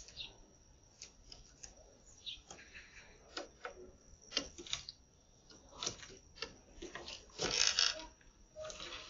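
Spotted doves pecking at seed on a hard balcony floor: a scatter of quick, irregular taps and clicks, with one louder rustling rush about seven and a half seconds in.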